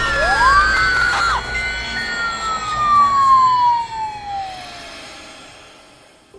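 A siren-like wail: a couple of quick rising-and-falling sweeps in the first second and a half, then one long tone sliding slowly down in pitch and fading away.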